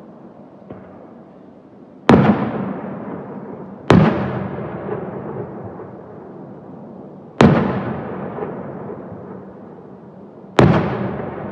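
Aerial firework shells bursting: four sharp booms, each trailing off in a long fading rumble, with a faint pop about a second in.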